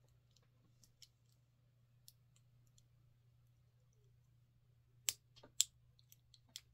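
Small metal clicks of a gold-tone pendant, its clasp and chain handled in the fingers: a few faint ticks, then sharper clicks about five seconds in and once more near the end, over a faint steady low hum.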